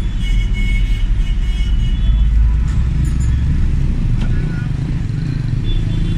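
Engine rumble and road noise heard from inside a vehicle's cabin as it moves through city traffic, with a few thin high-pitched tones in the first two seconds.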